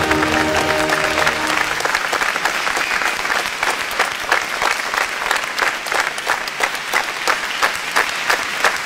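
Crowd applauding, with music fading out over the first couple of seconds. The clapping then falls into a fairly even rhythm, about two or three claps a second.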